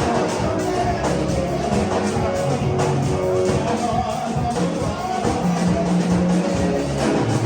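Music with guitar and a steady beat, playing throughout.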